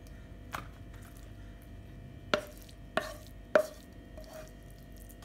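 Wooden spatula knocking against the rim of a metal frying pan, tapping masala off: a light tap, then three sharper knocks about half a second apart, each with a short ring from the pan.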